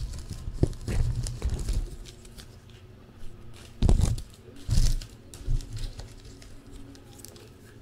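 Trading card packs being torn open and their wrappers crinkled as the cards are handled, with several dull knocks, the loudest about halfway through.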